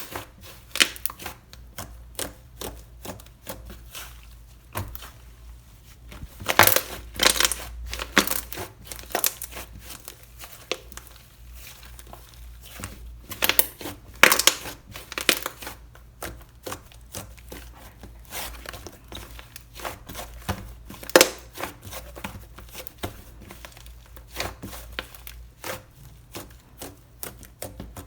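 Irregular crunching and crackling, coming in clusters a few seconds apart.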